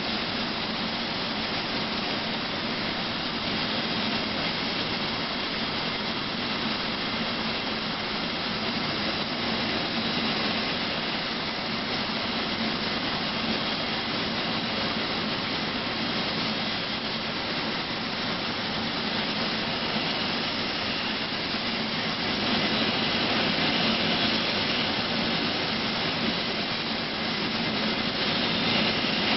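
Large ship's bandsaw running steadily and cutting through a thick oak futtock, with the blade being tilted during the cut to saw a rolling bevel. It gets somewhat louder about two-thirds of the way in and again near the end.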